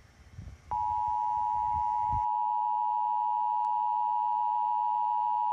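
Emergency Alert System attention signal: a loud, steady two-tone beep starting under a second in. For the first two seconds, low crackling static runs underneath it.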